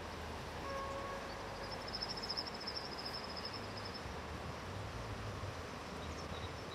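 Rural outdoor ambience: a steady background hiss, with a short whistled note about a second in and a high trill lasting a couple of seconds.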